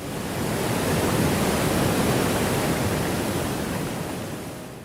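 Waterfall, a steady rush of falling water that swells in at the start and fades down toward the end.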